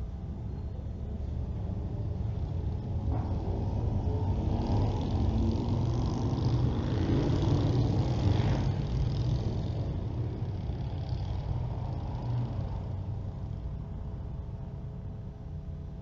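A passing vehicle: a low rumble that swells to a peak about halfway through and then fades away.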